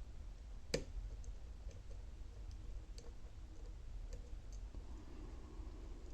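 Small metallic clicks and ticks of a dimple lock pick and tension wrench working the pins inside an Alba dimple lock cylinder, with one sharper click a little under a second in and fainter scattered ticks after it.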